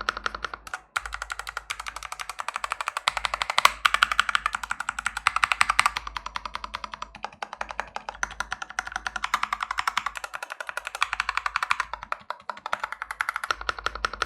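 Fast, continuous typing on a mechanical keyboard fitted with lubricated Akko switches, a dense run of clacky key strikes at about ten a second with brief pauses.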